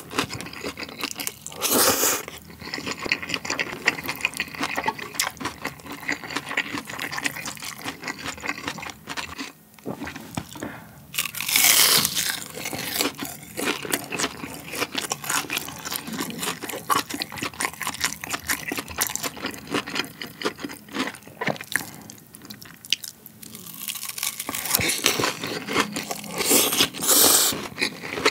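Close-miked mukbang eating: a few loud slurps of chewy spicy jjolmyeon noodles, with steady wet chewing and small mouth clicks in between.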